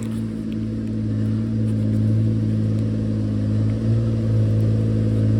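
An engine running steadily at an even speed, a low hum that holds the same pitch throughout.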